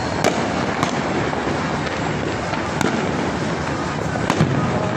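Many fireworks and firecrackers going off at once: a continuous crackling din with four sharper bangs standing out.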